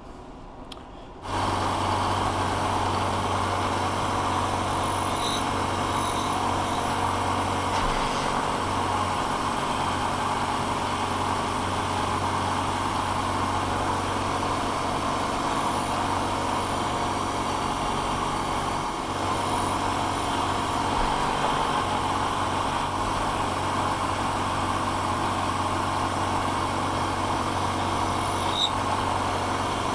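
Vertical milling machine running steadily, its end mill cutting brass on a rotary table: a constant motor hum under a dense cutting noise. It comes on suddenly about a second in.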